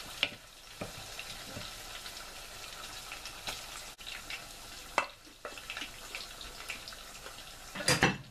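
Red onion bajji batter frying in shallow oil in a pan: a steady sizzle with scattered crackles, and a louder knock near the end.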